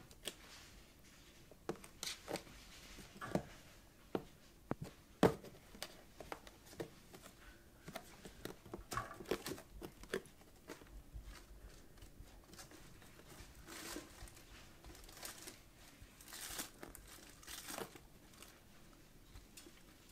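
Kittens scrambling and pawing on a cardboard box: irregular scratching, rustling and crinkling of claws on cardboard, with sharper knocks and thumps in the first few seconds.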